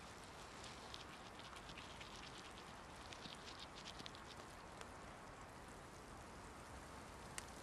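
Near silence: a faint steady hiss of quiet outdoor ambience with scattered soft ticks and patters, most of them in the first half and one sharper tick near the end.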